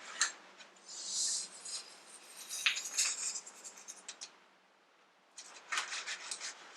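Hands handling CV axle parts: sharp clicks, scrapes and rustling, with a short lull before a quick run of clicks near the end.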